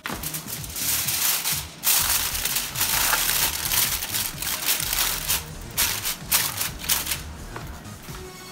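Sheet of aluminium foil crinkling and crackling as hands spread and press it over a roasted chicken in a roasting pan. It starts abruptly, is busiest in the first half and thins out near the end.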